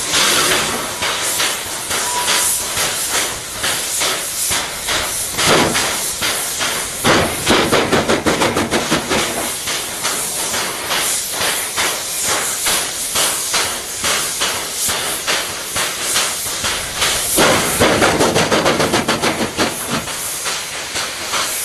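Steam locomotive moving slowly, steam hissing loudly from its open cylinder drain cocks, with knocking from the running gear. The hiss swells about five and a half seconds in, and twice more it swells into a quick run of pulsing beats, around seven seconds in and again near eighteen seconds in.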